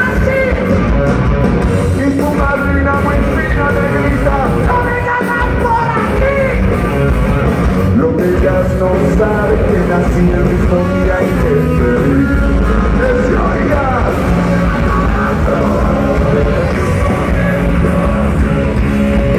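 Live rock band playing loud over a concert PA: electric guitars, bass and drums, heard from the audience.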